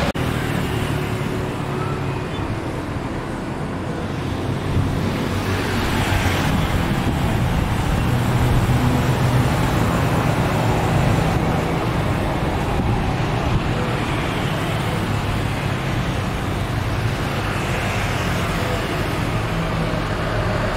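Steady rumble of an Airbus A320-family jetliner's engines on the runway, with a low hum underneath.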